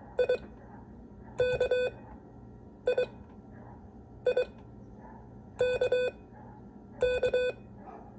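Morse code practice tones keyed by hand, sending the letters I (dit-dit) and K (dah-dit-dah) in six short groups about a second and a half apart, each a mid-pitched beep.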